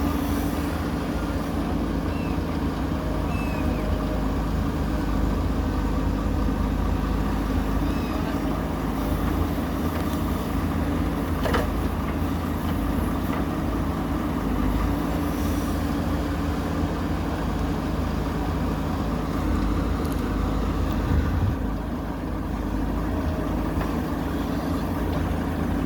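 Diesel engine of heavy earthmoving machinery running steadily, with a faint knock about halfway through.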